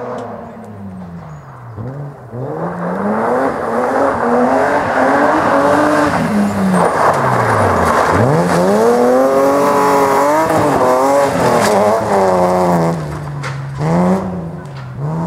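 BMW E36 rally car's engine being driven hard past on a gravel stage. The engine note climbs and drops again and again with the throttle and gear changes, drops sharply about eight seconds in and then climbs steeply as the car accelerates out of the turn, and the tyres hiss and scatter gravel underneath. It is loudest through the middle and quieter near the end as the car moves away.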